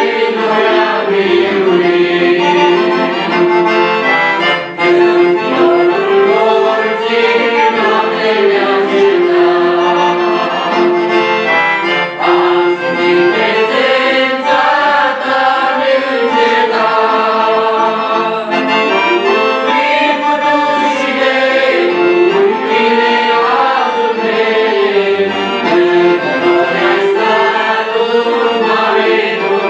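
Small mixed group of young singers singing a Romanian hymn together, accompanied by a piano accordion.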